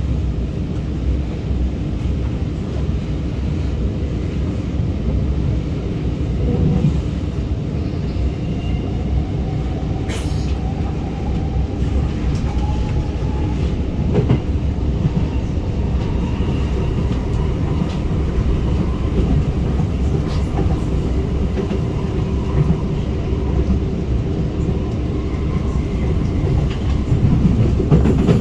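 Inside an R151 metro train pulling away and accelerating: a steady rumble of wheels on rail, with the traction motors' whine rising in pitch over several seconds. A single sharp knock comes about ten seconds in.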